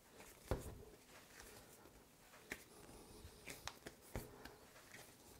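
Faint handling sounds of hands kneading a lump of fondant on a tabletop, with a few soft knocks and clicks, the loudest about half a second in.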